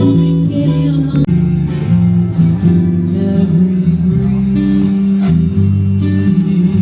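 Background music: acoustic guitar strumming with a sung vocal.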